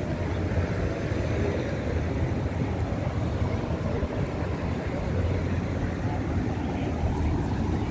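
Steady low rumble of street traffic noise, with a car driving past.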